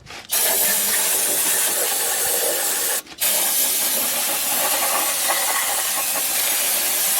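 Aerosol brake cleaner sprayed in two long hissing bursts, broken briefly about three seconds in, to clean old gear oil and grime out of a rear differential housing.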